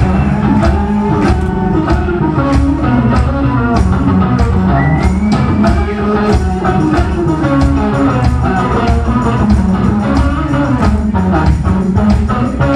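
Live rock band playing an instrumental passage: electric guitar, bass guitar and drums, with a steady beat of drum hits.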